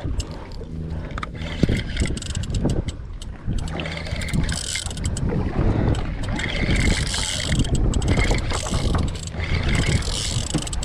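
A fishing boat's engine humming steadily at sea, under irregular clicks and knocks of handling on deck and patches of hiss from wind or water.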